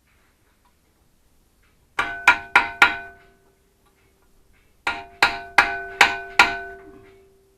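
Hammer blows on metal: four quick strikes, then a pause and five more, each ringing with a clear metallic tone. The hammer is being used to force spring-loaded foot pegs onto a pit bike.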